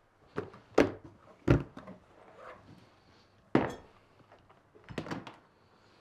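A handful of sharp knocks and thuds in a small room, the loudest just under a second in, at about a second and a half and about three and a half seconds in, with a smaller cluster near the end.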